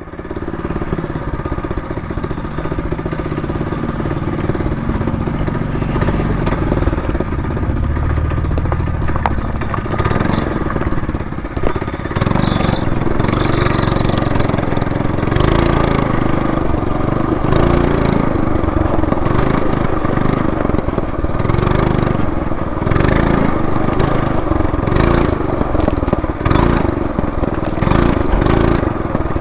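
Trailmaster MB200 minibike's small single-cylinder engine running steadily as the bike is ridden along a trail, with frequent brief crackles of noise over it in the second half.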